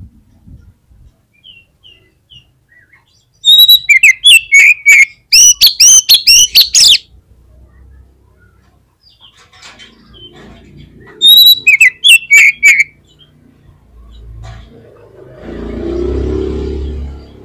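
Oriental magpie-robin (kacer) in full song, giving two loud bursts of rapid, sweeping high notes: the first about three seconds long, the second shorter, about eleven seconds in. A low muffled rumble swells near the end.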